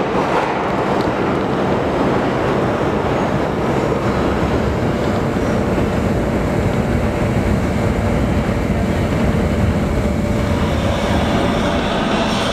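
New York City subway trains running through an underground station: a continuous rumble of wheels on the tracks. From about ten seconds in, a rising whine and brighter rail noise come in as another train approaches.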